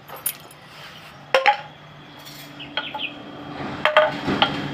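A small metal tin can being handled on a concrete floor: a few sharp, separate clinks and knocks as it is picked up and moved, with pieces of charcoal rattling against it.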